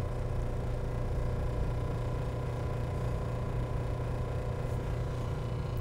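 Steady mechanical hum with a faint hiss from the running wall suction and oxygen supply, with the vacuum regulator set to between 100 and 150 mmHg.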